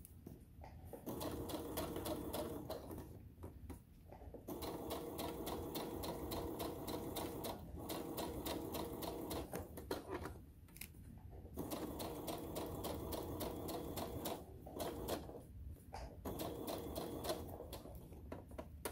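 Electric sewing machine stitching a seam through layered fabric: rapid, even needle strokes in runs of a few seconds, stopping briefly between runs about four times.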